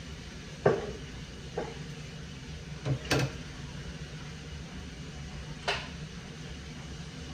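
Four separate knocks and clacks, one a quick double, over a low steady hum.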